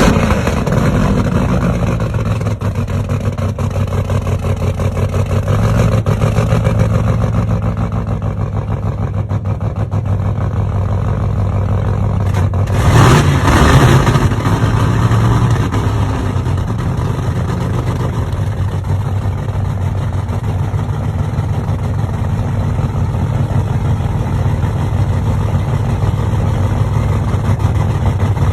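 Engine running steadily with a low, even hum, swelling briefly in revs about halfway through before settling back.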